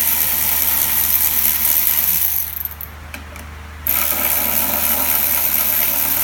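Power driver spinning out the housing bolts of a BMW X5 ATC 500 transfer case. It runs in two long bursts separated by a pause of about a second and a half.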